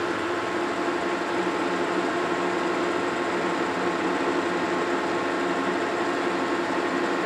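Metal lathe running steadily with an even machine hum while its cutting tool takes a heavy pass of about 200 thou off a long rod.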